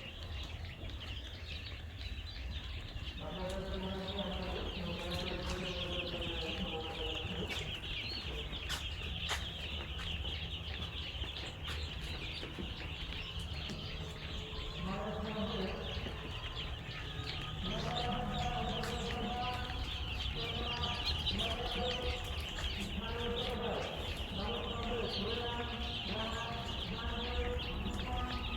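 Many chicks peeping together in a steady, dense chorus.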